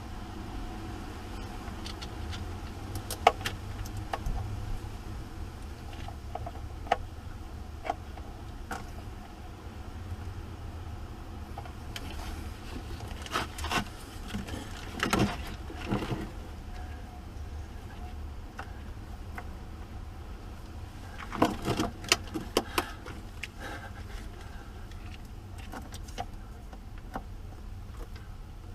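Scattered metallic clinks and knocks of hand tools working on battery terminals and cables, in clusters with pauses between, over a steady low hum.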